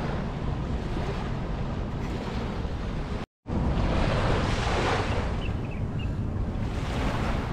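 Small waves washing onto a sandy shore, with wind buffeting the microphone. The sound cuts out completely for a moment about three seconds in, then the surf goes on, swelling and easing.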